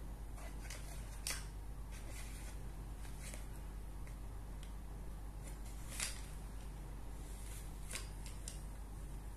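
Coloured pencils and a cardboard pencil box being handled on a table: scattered light taps and rustles, the loudest tap about six seconds in, over a steady low hum.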